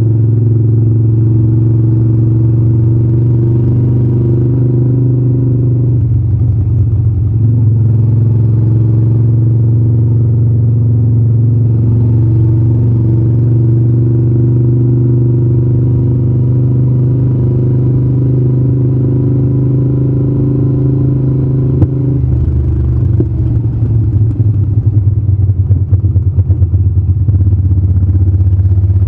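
Moto Guzzi California 1400 Custom's V-twin engine running steadily under way, heard from the rider's seat. The note shifts briefly about six seconds in, then turns uneven and pulsing from about 22 seconds in.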